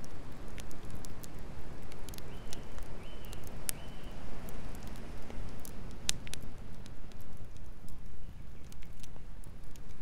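Wood campfire burning, with irregular sharp crackles and pops from the burning branches over a steady low rushing noise.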